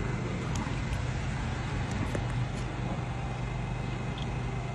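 Steady low hum and noise of an S-Bahn electric train at the platform, with a few faint ticks.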